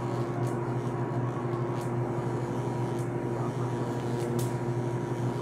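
Steady mechanical room hum holding a few even, unchanging tones, with faint ticks now and then.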